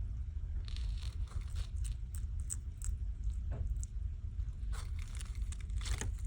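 Bearded dragon chewing mealworms: a run of irregular, crisp crunches and clicks over a steady low hum.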